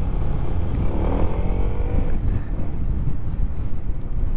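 Wind buffeting a microphone inside a motorcycle helmet's chin area while riding, a dense low rumble, with the motorcycle running underneath. About a second in, an engine note briefly rises in pitch.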